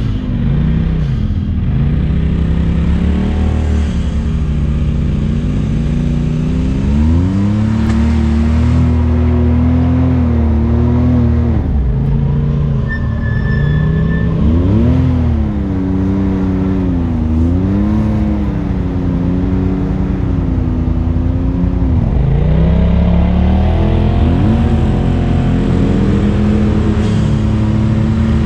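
Side-by-side UTV engine revving under throttle, its pitch rising and falling every few seconds.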